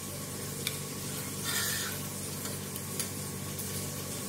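Steady sizzle of food frying in a pot, over a steady low hum, with a few faint clicks.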